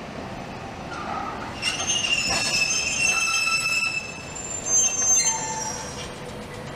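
Okayama Electric Tramway streetcar's steel wheels squealing on the rails as it rolls along the track. It is a high, shrill squeal of several pitches that sets in a little under two seconds in and dies away about five and a half seconds in, over a steady street background.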